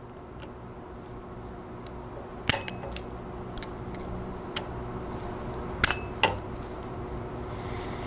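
Small metallic clicks and taps of pliers working a steel E-clip onto a shaft, with three sharper clicks that ring briefly, one about two and a half seconds in and two close together near six seconds, among fainter ticks.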